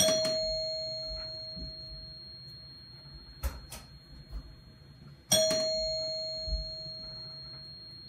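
Front-door doorbell chime struck twice, about five seconds apart, each ding ringing out and fading over a couple of seconds. Two short clicks fall between the dings.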